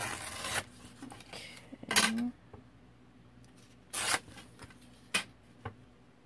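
Paper being torn along the edge of a ruler: three short rips, then a couple of light clicks.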